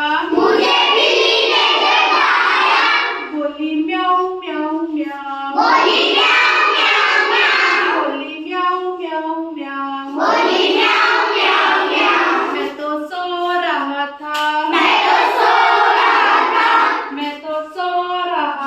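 Children singing a repeating sung line with hand clapping. Each sung phrase alternates, about every five seconds, with a louder, noisier stretch of two to three seconds.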